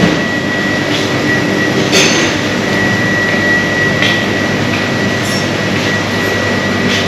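Steady machinery hum and hiss of an indoor market hall, with a thin high whine held throughout and a couple of faint knocks about two and four seconds in.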